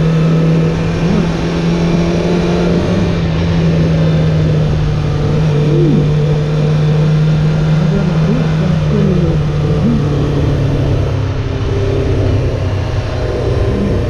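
Honda CBR600F4's inline-four engine running steadily at cruising speed under wind and road noise, dropping to a lower pitch about three quarters of the way through.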